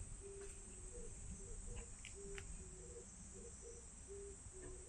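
Faint outdoor ambience of insects buzzing steadily in a high, even drone, with a string of short low-pitched notes repeating irregularly underneath and a few soft clicks about two seconds in.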